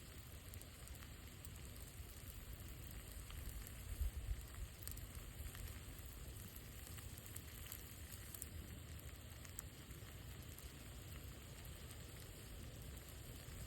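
Campfire crackling and hissing steadily, with faint scattered pops and a couple of louder bumps about four seconds in.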